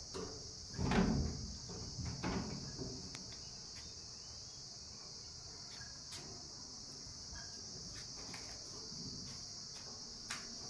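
Steady high-pitched insect chorus, with a low thump about a second in and a few lighter knocks and rustles after it.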